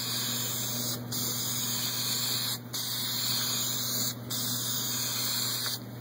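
Aerosol spray can of clear gloss lacquer hissing in four bursts of about a second and a half each, with brief breaks between, as a wooden panel is coated. A steady low hum runs underneath.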